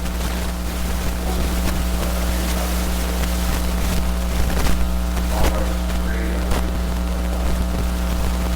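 Steady electrical mains hum and hiss in the recording, with a few sharp clicks and a faint, indistinct voice underneath.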